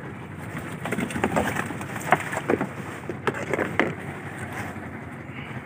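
Small fishing boat's engine running steadily, with a cluster of knocks and thumps from about one to four seconds in as a freshly caught yellowfin tuna is handled in the fish hold.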